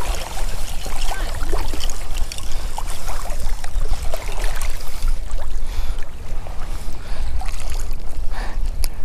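Wind rumbling on the microphone over choppy, shallow saltwater lapping and splashing around a wader's legs, with scattered small splashes.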